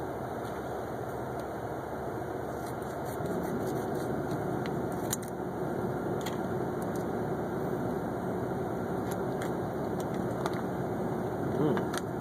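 Steady low mechanical hum with a faint steady tone running through it, and a few faint sharp clicks scattered across it.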